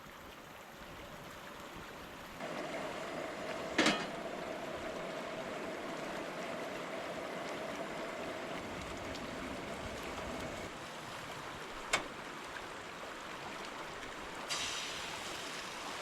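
Steady rushing of a river flowing past. A faint steady hum runs through the middle, and there are two sharp clicks, about four seconds in and about twelve seconds in.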